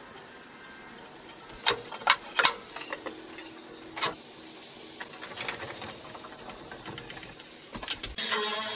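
A few sharp knocks of pine boards being handled and set in place. Near the end a cordless drill starts up and runs steadily.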